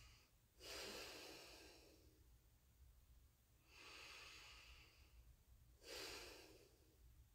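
A woman taking slow, deep breaths in and out through her nose, as in a yoga breathing exercise. Three soft breath sounds come two to three seconds apart.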